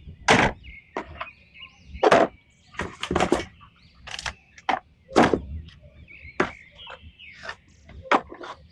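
About a dozen irregular knocks and thumps, the loudest near the start, about two seconds in and about five seconds in, over faint high chirping.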